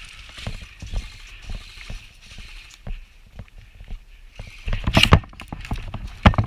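Footsteps of a person moving over rough ground, an uneven series of soft thumps, with louder scuffing or rustling about five seconds in and again near the end.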